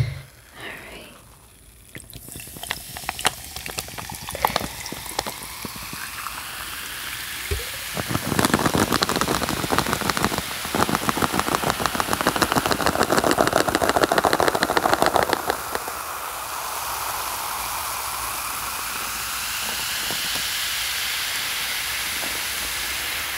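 Ginger ale poured from a can into a glass of ice, the carbonation fizzing with a loud dense crackle of popping bubbles for several seconds. It settles into a steadier fizzing hiss as more is poured near the end.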